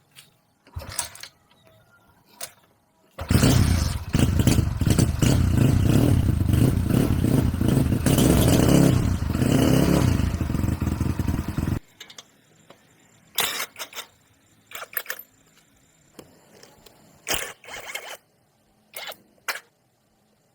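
Honda Win 110cc motorcycle's single-cylinder engine running loudly for about nine seconds, then cutting off suddenly. A few sharp clicks and knocks come before it and after it.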